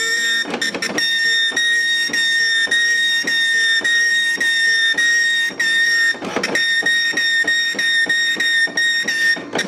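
Okidata Pacemark 3410 9-pin dot matrix printer printing a banner: the print head's pins fire as a steady high-pitched buzz, broken by short gaps about three times a second, with a rougher, noisier stretch about six seconds in.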